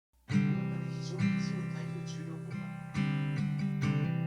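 Background music: acoustic guitar strumming chords, a new strum about every second.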